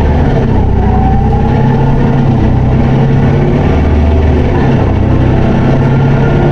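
Isuzu Erga city bus's 4HK1 four-cylinder diesel running under way, held in fourth gear in POWER mode, heard from inside the bus as a steady engine note. A thinner whine above it glides down and then up in pitch during the first couple of seconds.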